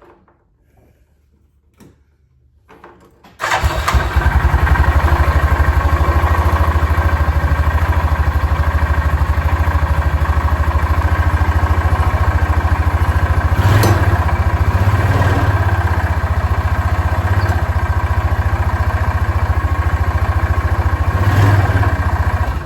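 Yamaha Rhino 450 UTV engine catching about three and a half seconds in, then running steadily with a rapid pulse and two brief louder bumps, one past the middle and one near the end. The owner takes the sound for an engine knock, though he allows it may just be how this engine sounds; the oil is low.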